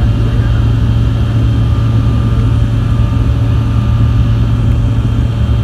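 Steady, loud engine drone: a deep continuous hum with a few thin steady whines above it and no change in pitch.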